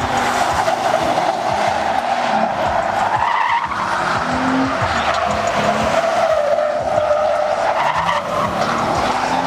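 Tyres squealing continuously as Chevrolet pickups do burnouts and donuts, the squeal wavering up and down in pitch as the trucks slide. Music with a low bass line plays faintly underneath.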